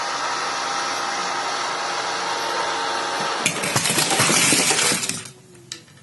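Remote-control toy construction vehicles: small electric motors whir steadily, then about three and a half seconds in a loud clinking clatter lasts under two seconds and breaks off sharply, leaving it much quieter.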